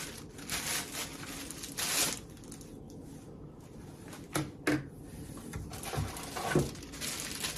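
Packaging rustling, with light knocks and clicks of plastic vacuum-cleaner parts being handled as they are taken out of their box, in short separate bursts.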